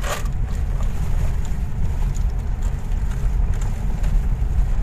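Steady low rumble of engine and road noise heard inside the cabin of a moving vehicle, with a short noisy burst right at the start.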